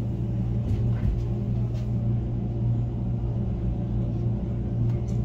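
Wengernalpbahn train carriage running, heard from inside: a steady low hum and rumble with a few faint clicks.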